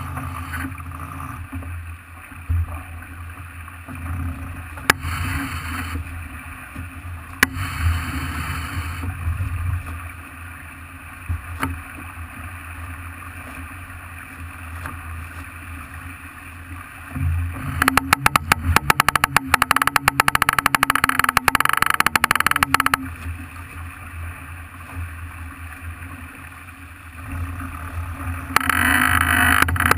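Steady rushing wind and water noise aboard a Farr 40 racing sailboat under way. Two louder stretches of rapid clicking or rattling come in, one about eighteen seconds in lasting some five seconds, the other near the end.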